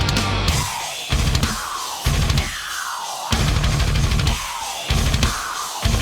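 Background rock music: heavy drums and bass hit in stop-start bursts, with falling sweeps in pitch in the gaps between them.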